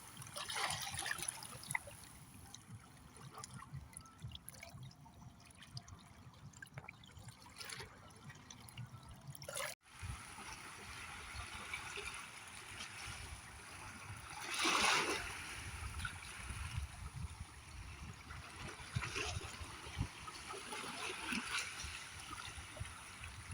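Small ocean waves washing and trickling on the shore, with one louder wash about fifteen seconds in.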